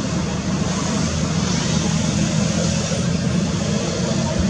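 Steady road-traffic noise: a low engine hum under an even rushing hiss.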